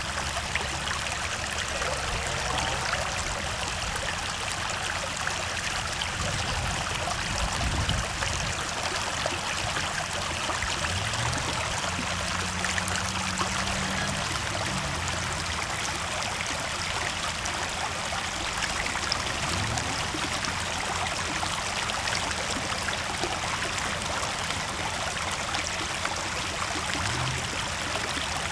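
Water rushing steadily through a ford. Beneath it, a Land Rover Defender 90's engine is faintly heard revving up and down a few times.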